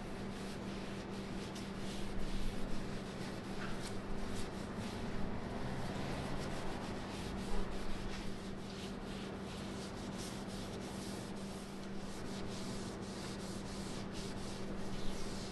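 Cloth pad rubbing over a wooden stool seat, wiping on finish in irregular scratchy strokes, over a steady low hum.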